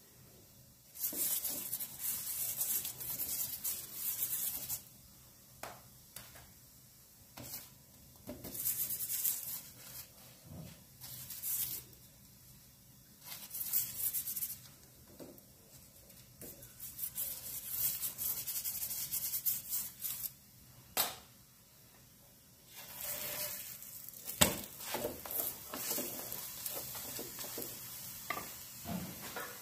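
Cauliflower-stuffed paratha frying in ghee on a tawa, sizzling in stretches of a few seconds as it is pressed down and turned. There are a couple of sharp knocks about two-thirds of the way in.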